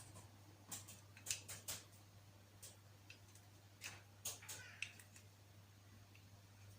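Faint, scattered light clicks and taps of kitchen handling over a steady low electrical hum, with a brief squeak or two about four to five seconds in.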